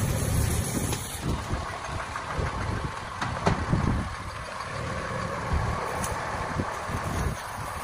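A motor running steadily, with scattered knocks and clicks over it.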